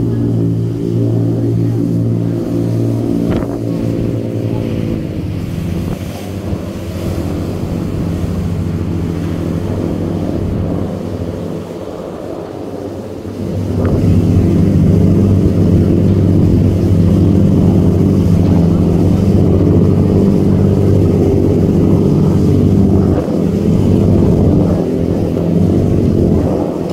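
Pilot boat's engines running hard at speed: a steady engine drone over the rush of its churning wake. The sound gets louder about halfway through as the boat comes in close underneath.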